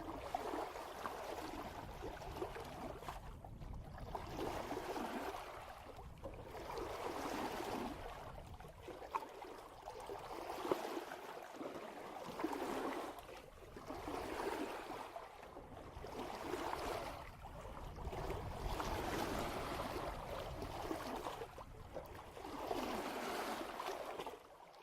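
Water rushing and splashing along a sailboat's hull as it sails downwind in light wind, swelling and easing about every two seconds, with a steady low rumble underneath.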